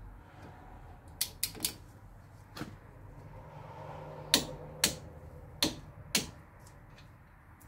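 Click-type torque wrench ratcheting and clicking on the brake caliper bolts as they are torqued to about 21 foot-pounds: sharp metallic clicks, three in quick succession a little over a second in, then five more spaced out, the later ones in pairs.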